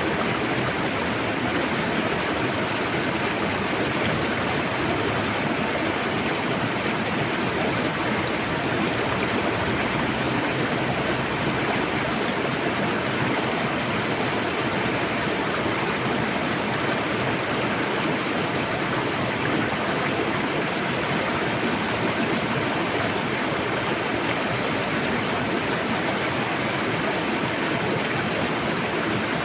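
Fast-flowing river rushing over rocks, a steady, even roar of water.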